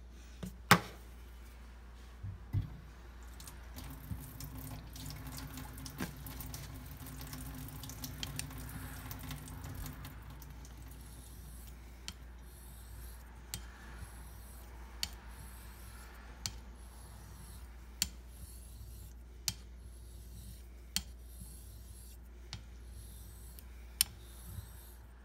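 Greaves wedge straight razor being honed on a wet 1.5K Shapton Pro water stone. The blade rubs with a soft wet hiss along the stone, with a light click about every second and a half as the razor turns over on its spine between strokes, and a steady low hum underneath.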